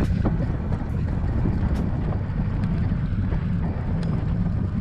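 Wind buffeting the microphone of a bike-mounted camera while riding: a steady low rumble, with a few faint clicks.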